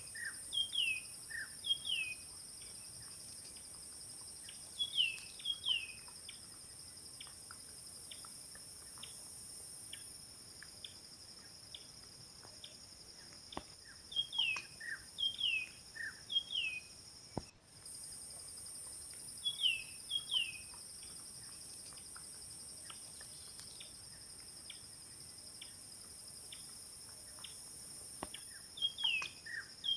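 Bush ambience: a steady high-pitched insect buzz, with a bird giving short down-slurred whistled chirps in quick groups of two or three every few seconds. The buzz breaks off for a moment just past halfway.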